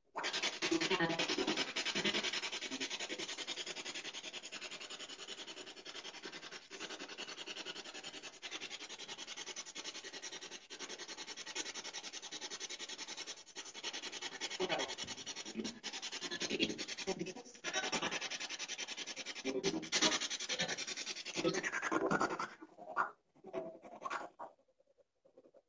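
Hiss of electronic static, pulsing rapidly, turning choppy and broken in the later part, then cutting off shortly before the end.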